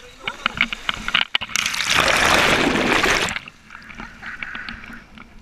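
Sea water rushing and splashing for about two seconds, the loudest sound here, as the parasailers skim or dip into the ocean surface. Short clicks and ticks come before it.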